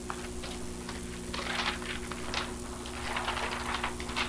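Loose sheets being handled and sorted, rustling in short irregular bursts, over a steady low hum.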